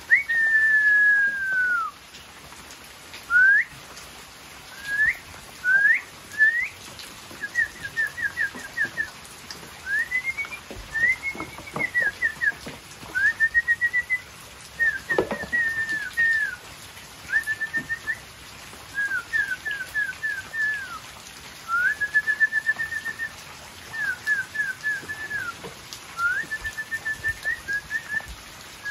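Clear whistled phrases kept within a narrow band of pitch: a long falling note at the start, a few upward swoops, then quick runs of short repeated notes, about six a second, separated by short gaps.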